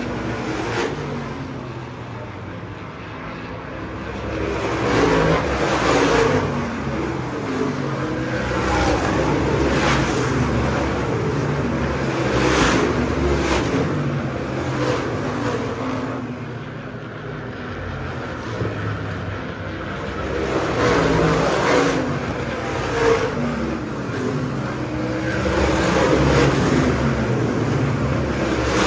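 ISMA supermodified race cars' big-block V8 engines lapping the track, their sound swelling and fading as the cars pass and the revs rise and fall, several times over.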